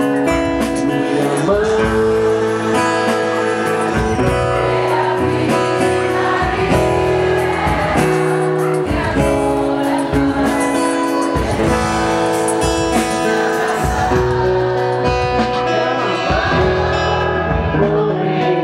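A song with singing over guitar, with a steady beat.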